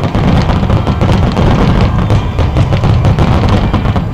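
Dense barrage of aerial firework shells bursting in quick succession: overlapping booms and cracks with a continuous low rumble, tailing off near the end.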